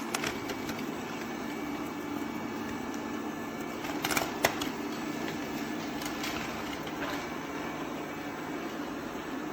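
Robot vacuum cleaner running: a steady motor whir with a held low hum, and a couple of short clicks about four seconds in.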